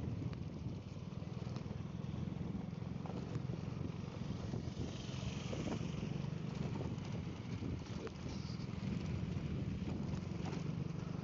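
Small motorcycle engine running steadily while riding along a rough dirt road, with road and wind noise; a hiss swells and fades about five seconds in.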